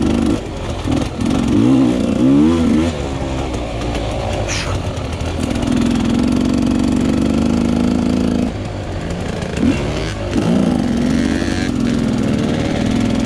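Dirt bike engine heard from on the bike as it is ridden over a dirt trail, revving up and down in several sweeps, with steadier stretches of held throttle in the middle and near the end.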